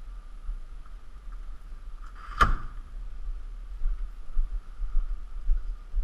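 A hotel room door pulled shut, closing with one sharp bang about two and a half seconds in, over a steady low rumble.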